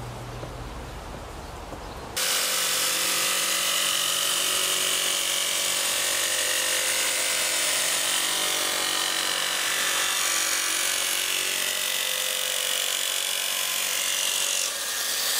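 Makita JV001G 40V XGT brushless barrel-grip jigsaw switching on about two seconds in and cutting steadily through a thin white sheet panel; the sound shifts slightly near the end.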